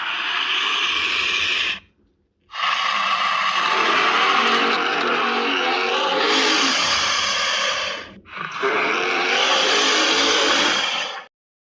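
Harsh, noisy monster sound effects in three loud stretches, with a short silence about two seconds in and a brief break about eight seconds in, ending abruptly just before the end.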